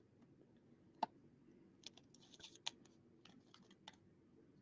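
Near silence broken by a few faint, scattered clicks and light scrapes, about a second in, in a cluster near the middle and a few more toward the end.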